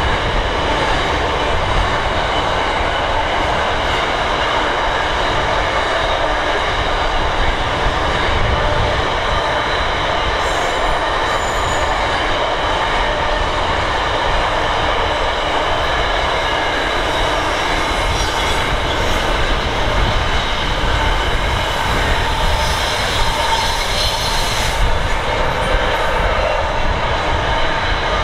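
Double-stacked container wagons of a long intermodal freight train rolling steadily past: a continuous rumble of steel wheels on rail with steady high ringing tones from the wheels.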